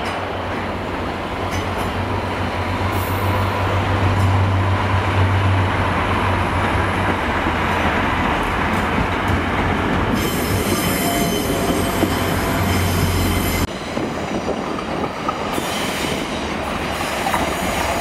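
English Electric Class 37 diesel locomotive running past hauling coaches, its engine making a steady low drone that cuts off suddenly about three-quarters of the way through. Wheels squeal on the curved track from about ten seconds in, with some clickety-clack of wheels over the rail joints and points.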